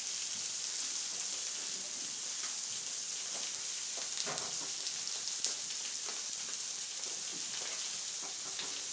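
Peppers and mushrooms sizzling on a hot plancha griddle: a steady frying hiss, with a few light clicks, the sharpest about five and a half seconds in.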